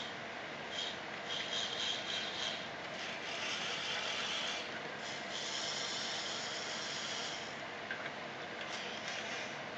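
Small gear motors of a hobby robotic arm whirring as the arm moves: several short runs, then two longer steady runs of a high-pitched whine. A few brief clicks follow near the end.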